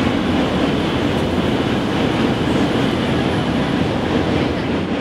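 A train running with a steady, continuous rumble and no breaks.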